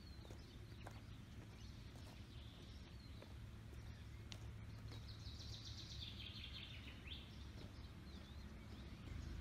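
Faint riverside ambience of songbirds chirping over a low, steady background rumble. About five seconds in, one bird sings a falling trill that lasts about two seconds.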